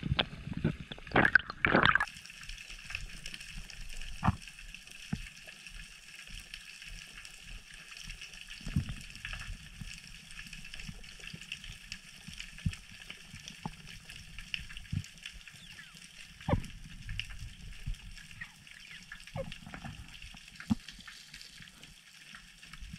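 Underwater sea noise picked up by a camera in a waterproof housing: a steady hiss with scattered clicks and knocks, and a few louder knocks in the first two seconds.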